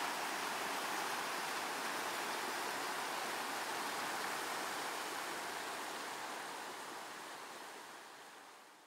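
Shallow rapids rushing over stones in a cobblestone-lined stream channel: a steady rush of water that fades out over the last three seconds or so.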